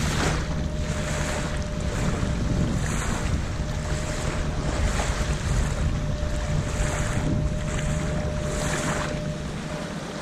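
Sea Eagle 12.6SR inflatable boat running through choppy sea: water rushes and slaps at the hull every second or so, with wind buffeting the microphone and a thin, steady motor tone underneath.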